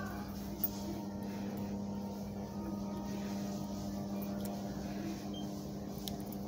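Steady low hum over faint background noise, with a single small click about half a second in.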